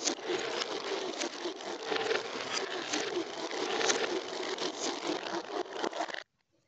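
Glass marbles rolling and rattling along a homemade plastic marble-run track, a continuous rumble with frequent small clicks. It cuts off suddenly about six seconds in.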